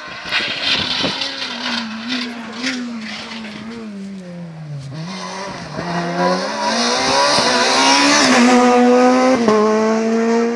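Rally car engines running hard at high revs. The pitch drops as the car slows about four to five seconds in, then climbs again in steps as it accelerates through the gears.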